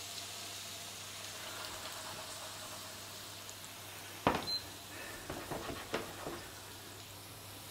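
Diced bacon, onions and sliced potatoes frying with a steady, gentle sizzle in two pans. About four seconds in, a frying pan is set down on the glass induction hob with a sharp knock, followed by a few lighter clatters over the next two seconds.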